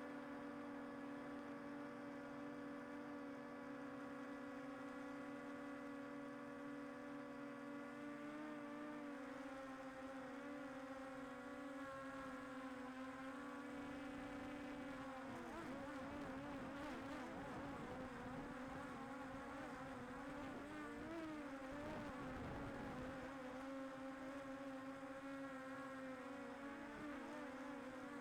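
DJI Air 2S quadcopter's propellers buzzing, a steady whine at first that starts wavering up and down in pitch about halfway through as the drone changes speed.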